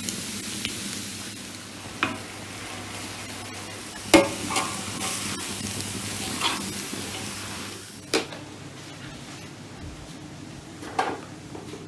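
Vegetables sizzling as they stir-fry in a wok, a metal spatula stirring and scraping with a few sharp knocks against the pan, the loudest about four seconds in. The sizzling stops about eight seconds in, and a couple of quieter clatters follow near the end.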